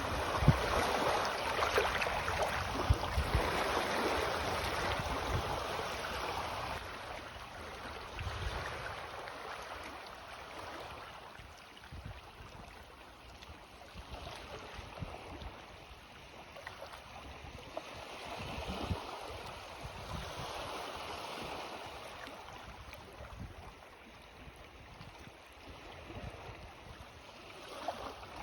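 Small sea waves of the incoming tide washing onto the shore, swelling and ebbing in several surges, strongest in the first few seconds, with a few brief low thumps.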